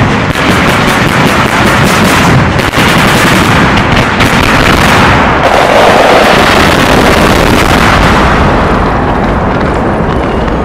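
A dense barrage of firework salutes exploding, sharp cracks and booms following each other so fast that they merge into one continuous sound, which begins to die down near the end.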